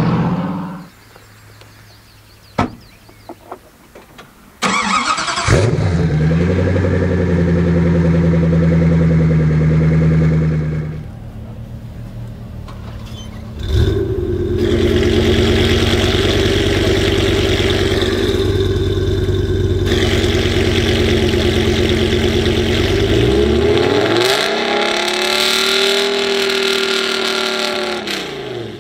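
A car engine cranks and fires about five seconds in and idles. Then a BMW M5 E60's 5.0-litre V10 starts with a rising flare about halfway through and settles to idle. It is revved once near the end, held, and dropped back.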